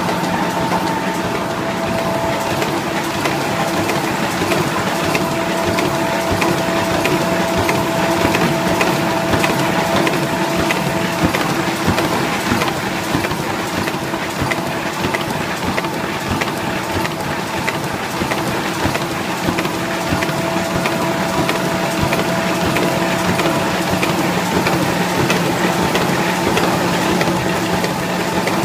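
Box folder-gluer machine running: a steady, dense mechanical rattle over a constant hum of several steady tones.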